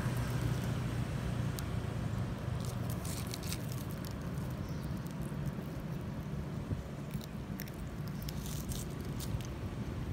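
Scattered small crisp clicks and crackles of a young long-tailed macaque nibbling and chewing food held in its hands, in two short clusters, over a steady low background rumble.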